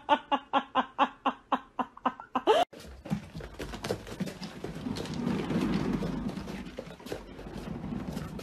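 Domestic cat making a fast run of short, repeated calls, about six a second, for nearly three seconds. Then an abrupt change to rustling and handling noise with a low rumble.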